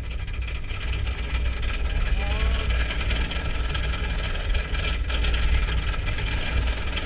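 Steel roller coaster train running on its track, most likely climbing the lift hill: a steady low rumble with a faint mechanical clatter.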